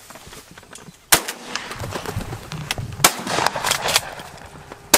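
Gun fired three times, about two seconds apart, the first and last shots the loudest.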